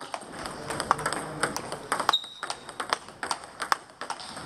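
Table tennis balls being played on several tables at once: a dense, irregular patter of sharp clicks from bats and table bounces. A short high squeak comes about two seconds in.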